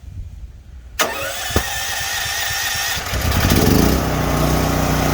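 Portable generator with push-button electric start, running on propane: the electric starter cranks for about two seconds, then the engine catches, picks up speed and settles into steady running.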